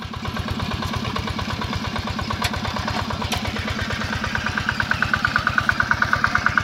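Yanmar walk-behind hand tractor's single-cylinder diesel engine running with a fast, even beat while it pulls a plough through hard paddy soil. The beat grows louder and more rattly about four seconds in.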